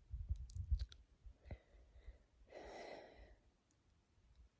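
A woman's heavy sigh, one long breathy exhale about two and a half seconds in, after low rumbling on the microphone in the first second.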